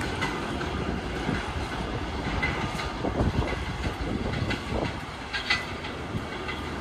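New York City subway train running on an elevated steel line: a steady rumble with scattered clacks of wheels over the rails, heaviest in the middle.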